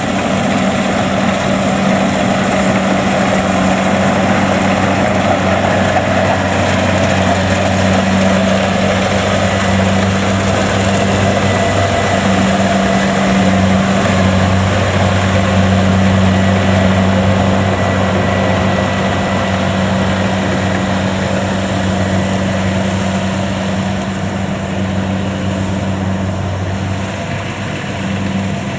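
Kubota DC70 Plus rice combine harvester's diesel engine running steadily as it harvests, a constant low hum over mechanical noise, easing a little quieter near the end.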